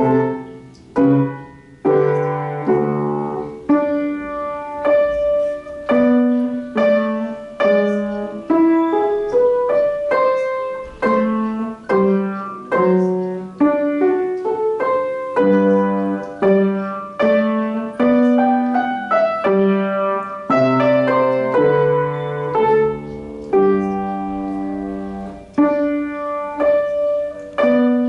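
Solo piano playing a short classical piece at a moderate, even pace, each note struck clearly and fading away.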